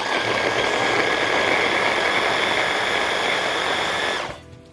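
Electric hand blender with a chopper bowl running steadily, mincing whole garlic cloves with salt and oil. It makes a motor hum with a steady whine, starts suddenly and cuts off about four seconds in.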